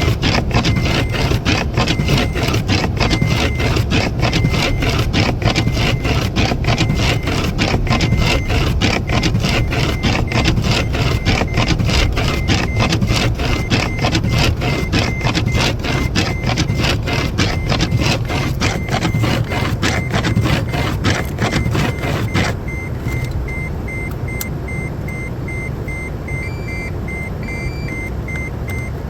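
An engine running with a fast, even pulsing noise that cuts off about 22 seconds in, leaving a quieter steady hum. A short, high electronic beep repeats at a steady pace throughout, and a second, higher beep joins it near the end.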